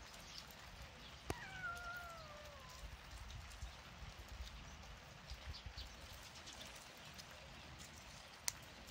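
A tabby cat gives one drawn-out meow that falls in pitch, about a second in. A sharp click comes just before it and another near the end.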